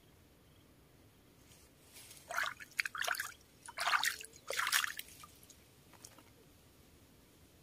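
Water splashing at the river surface in four or five short bursts between about two and five seconds in, from a small hooked fish, a silver barb, thrashing as it is drawn in on a float rod.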